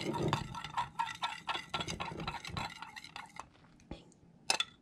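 A metal utensil stirring liquid plastisol in a glass measuring cup, clinking and scraping against the glass in quick, irregular strokes as colorant is mixed in. The stirring dies away about three and a half seconds in, with a couple of sharp clinks near the end.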